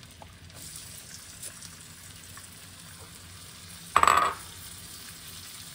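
Butter, olive oil and minced garlic sizzling steadily in a deep saucepan on high heat, with a short loud burst about four seconds in.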